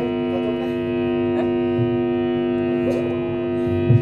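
Steady hum and buzz from the band's amplifiers: one constant tone with many overtones that does not change, over a low, uneven rumble.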